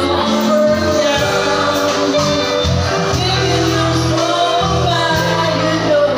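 Live band playing a song through PA speakers, with a singer's voice over bass, drums and keyboard.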